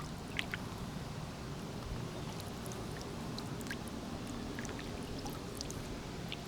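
Water sloshing and trickling around a small fishing boat as it moves through the water, with scattered light ticks.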